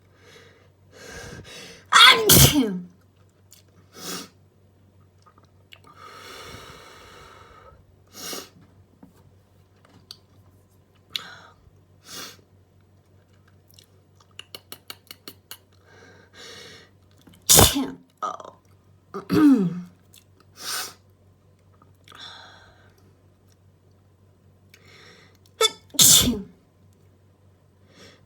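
A person sneezing repeatedly from allergies: four loud sneezes, one about two seconds in and three in the second half, with quieter breathy sounds between.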